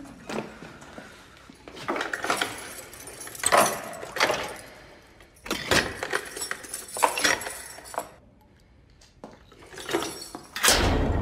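Jangling keys and sharp metal clanks at irregular intervals, a sound effect of a cell being locked, ending in a heavier thud.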